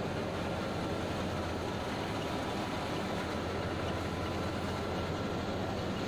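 Tractor-driven mung bean thresher running steadily under load as mung plants are forked into it: a continuous mechanical drone of the threshing drum and fan, with the tractor engine beneath, not changing in level.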